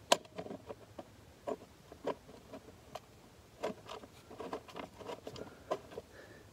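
Small metal clicks and taps of bolts being threaded by hand through a steel valve-mounting bracket, irregular and scattered, with one sharp click just after the start.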